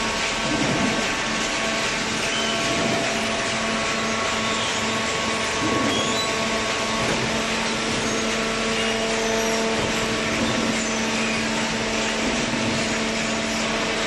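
Hydraulic cardboard baler running: a steady machine hum with several held tones over an even hiss, unchanging throughout.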